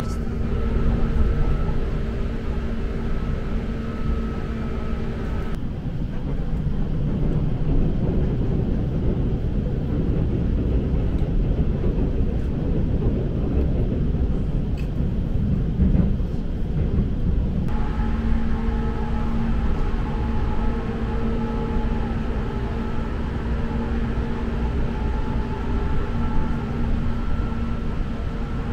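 Inside a Seibu New Red Arrow limited express train running along the line: a steady rumble of the wheels on the track with a steady hum over it. The hum drops away about six seconds in, leaving a rougher rumble for about twelve seconds, then comes back.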